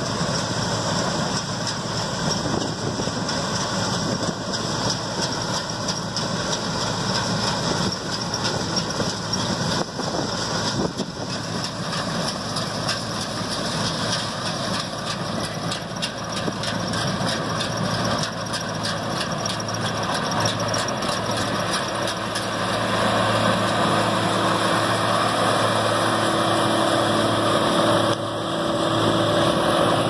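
Gleaner C2 self-propelled combine running as it harvests soybeans: a steady engine and machinery drone that grows louder in the second half as the combine comes closer.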